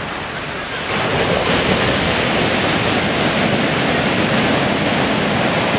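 Sea surf breaking and washing up a shingle beach: a steady rush that grows louder about a second in and stays loud.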